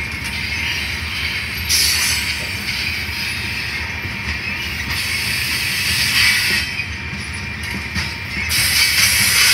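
Loaded covered hopper cars of a freight grain train rolling past, a steady low rumble of wheels on rail. Over it come stretches of high screeching and hissing from the wheels, about two seconds in, again past the middle, and near the end.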